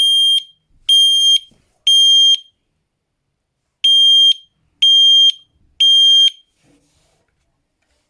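FireAngel ST-622 smoke alarm's piezo horn sounding on test: loud, high-pitched beeps in two groups of three, each beep about half a second long with a longer pause between the groups, the standard temporal-three smoke alarm pattern.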